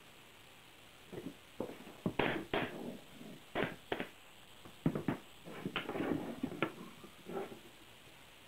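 Irregular sharp knocks and clacks of wood being handled on a workbench, mixed with the snapping shots of a pneumatic pin nailer driving pins into plywood. They come several times a second at uneven spacing from about a second in until near the end.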